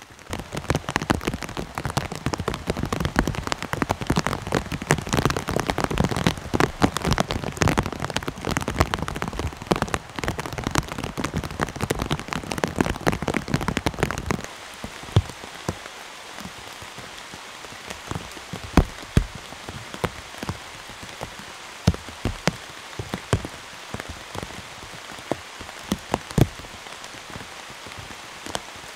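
Heavy rain: a dense, loud patter of drops for the first half, changing about halfway to a softer steady hiss of rain with scattered individual drips.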